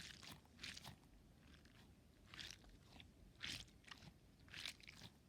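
Orbeez-filled stress ball squeezed repeatedly close to the microphone for ASMR: faint, crackly squishes of the water beads, about one every half second to a second.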